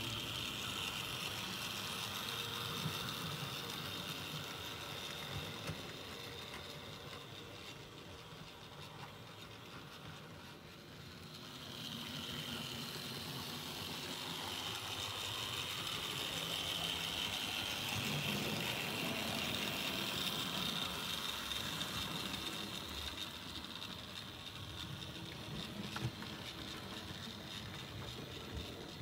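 Electric model locomotive, an OO-scale A4 Pacific 'Golden Fleece' pulling a rake of coaches, running round the track: a steady high motor whine with rolling wheel noise. It fades about a third of the way through and swells again as the train comes back past.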